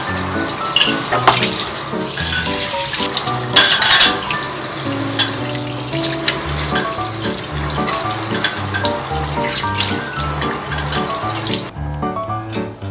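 Kitchen tap water running into a sink while washed dishes and glasses are set clinking into a stainless steel wire dish rack, the loudest clatter about four seconds in; the water stops near the end. Light background music plays throughout.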